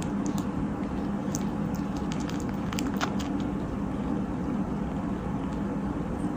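Kitten purring steadily, a continuous low hum, with a few faint clicks.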